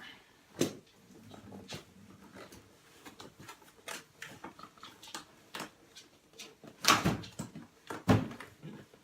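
A cardboard box being handled and pulled at while someone tries to open it by hand: scattered clicks, rustles and scrapes of cardboard, with two louder knocks about seven and eight seconds in.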